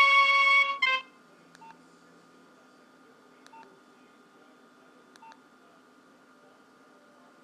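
Nokia 2610 mobile phone playing the last note of a ringtone through its small speaker, one held tone that cuts off about a second in. Then three faint, short key beeps about two seconds apart.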